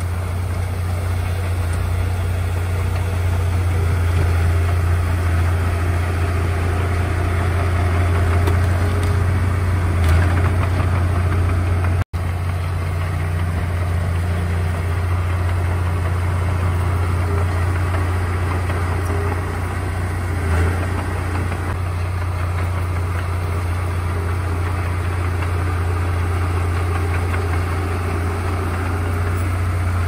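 Komatsu D31A bulldozer's diesel engine running steadily with a low, even drone; the sound breaks off for an instant about twelve seconds in.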